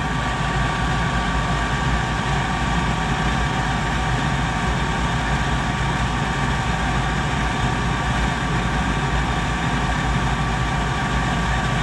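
Goodman gas pack furnace unit running steadily after start-up, a constant motor hum with a few steady tones above it.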